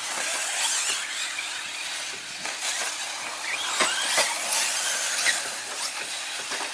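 Electric radio-controlled short course trucks racing on a dirt track: high motor whines rise and fall over a steady hiss of tyres on dirt, loudest about four seconds in, with a few sharp clicks.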